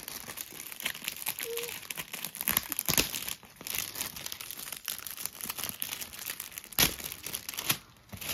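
Metallic foil gift wrap crinkling and crackling as hands pull it away from a boxed present, with one louder crinkle near the end.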